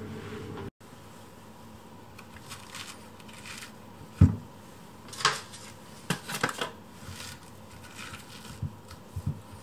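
Background music cuts off in the first second. Then come food-prep handling sounds: a wedge of kabocha squash is set down and turned on a wooden cutting board, with one dull knock about four seconds in and a scatter of lighter knocks and taps after it.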